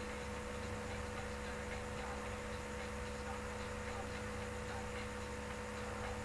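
Steady electrical hum with hiss, holding a few fixed tones, and faint, evenly spaced ticking running through it.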